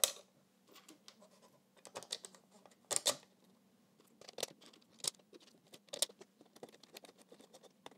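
Hands fitting a 3D-printed plastic wall mount onto the ribbed case of a Home Assistant Green: scattered light clicks, taps and small scrapes as the pieces are pressed together and shifted about.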